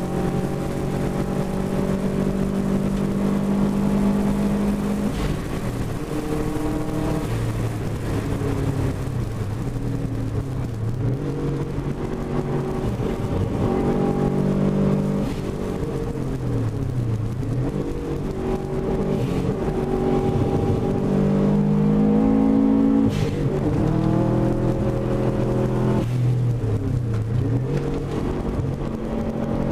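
Car engine driven hard on a race track, its pitch repeatedly climbing under acceleration and dropping sharply on lifts and gear changes. Wind buffets the microphone mounted outside the car.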